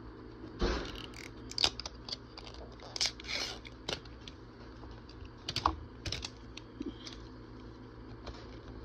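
Thin plastic shrink-wrap being peeled off a Mini Brands capsule ball by its tear-strip zipper: irregular crinkles and crackles of the plastic, with a few sharper clicks from handling the ball.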